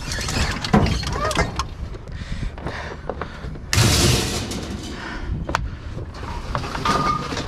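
Junk being shifted around inside a dumpster: scattered knocks and clatters, with a louder scraping rush about four seconds in.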